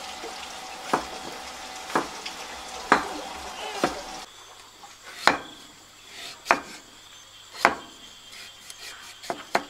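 Kitchen cooking sounds: food sizzling in a pan while a utensil stirs it, knocking against the pan about once a second. About four seconds in the sizzling stops, and sharper knocks follow a little over a second apart.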